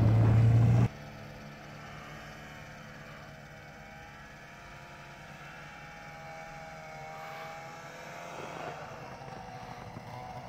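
Snowmobile engine running close by, cutting off suddenly about a second in. Then the fainter drone of a distant snowmobile engine, its pitch rising and falling.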